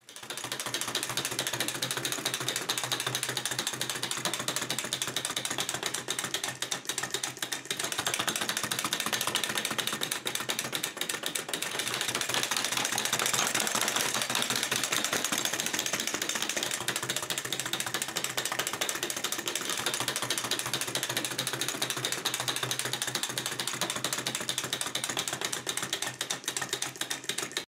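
Clockwork motor of a tin wind-up trotting race horse toy running, a rapid, steady whirring and clicking of gears as the horse trots along pulling its sulky.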